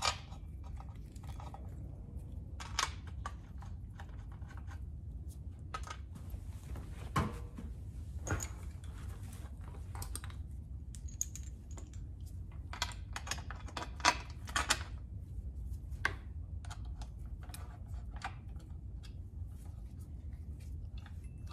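Scattered light clicks and small metallic clinks of gold cadmium bolts being fitted through an aluminum engine plate and run in with a hand tool, with a quicker run of clicks about two-thirds of the way through.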